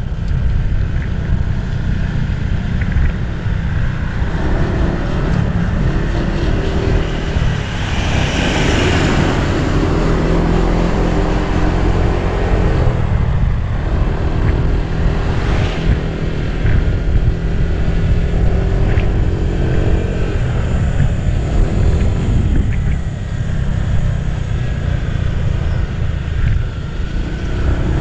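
Car engine and road noise while driving a winding mountain road: a steady low rumble whose engine note shifts up and down several times, with a brief rush of noise about eight to ten seconds in.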